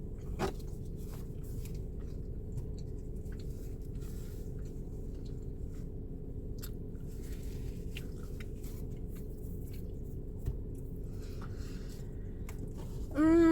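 Close-miked eating sounds: chewing and biting with scattered small crunches and wet clicks, over a steady low hum. A loud hummed 'mmm' starts just before the end.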